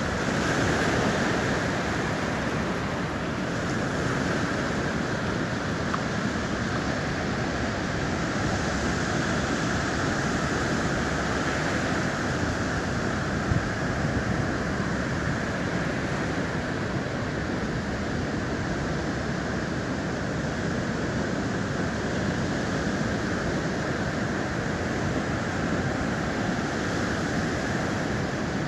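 Sea surf washing onto the beach: a steady rush of wave noise.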